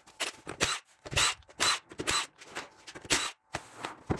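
A run of about a dozen sharp clicks, snaps and short scrapes at irregular spacing: hand work on the car's plastic parts and tools.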